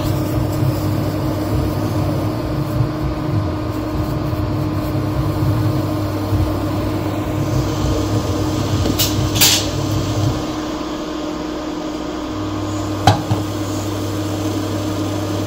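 Induction cooktop heating a steel double boiler: a steady electrical hum over its cooling fan. The hum drops out for about two seconds past the middle and comes back, as a hob on a mild setting cycles its power. A few light clicks along the way.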